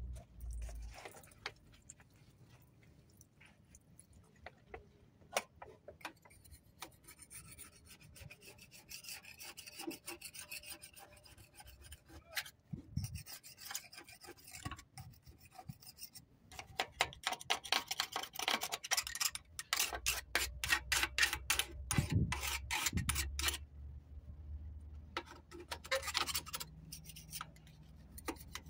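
Hand scraping and rubbing at the oily, sludge-caked parts of a Yanmar TF160 diesel engine: quick rasping strokes, scattered at first, then coming fast and loudest after about two-thirds of the way through.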